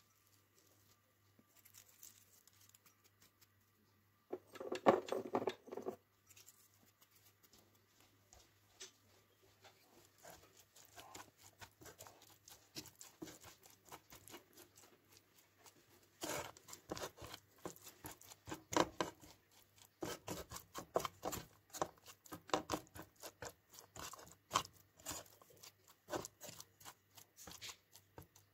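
Silicone spatula stirring and scraping chopped chicken around a nonstick frying pan: soft, irregular scrapes and taps, with a louder flurry about five seconds in and busier stirring through the second half.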